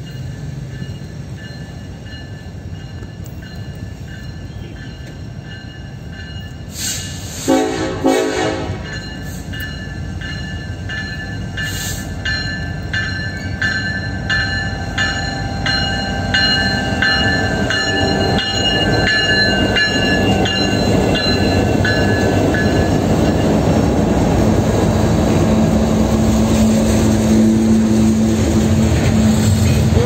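Freight train with KCS SD70ACe and ES44AC diesel locomotives approaching and passing: one short horn blast about a quarter of the way in, with thin high steady tones over the approach. The locomotives' engines and the wagons' wheels on the rails then build to a steady loud rumble as the cars roll by.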